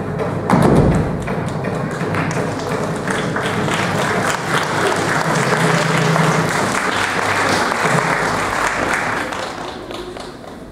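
A heavy thud as a thrown aikido partner lands on the mat, then audience applause that fades away near the end, with music playing faintly underneath.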